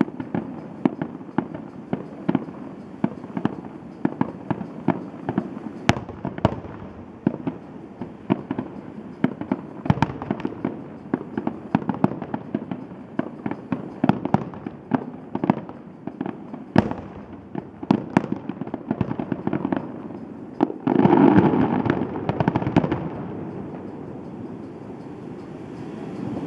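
Fireworks display: aerial shells bursting in rapid, overlapping bangs and crackles, several a second. Near the end comes a louder, denser barrage for a couple of seconds, which then thins out.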